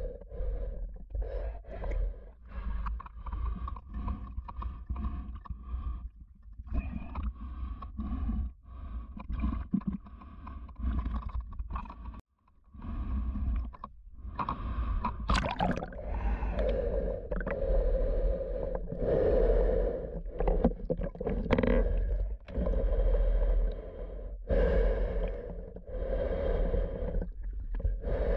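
A swimmer's heavy breathing through a full-face snorkel mask, with water sloshing and gurgling at the surface.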